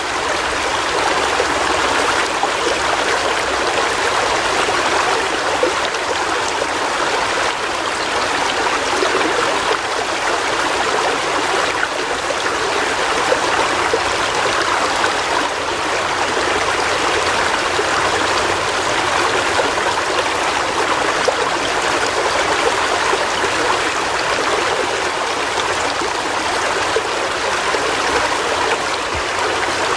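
River water flowing over stones: a steady rushing babble with no change in level.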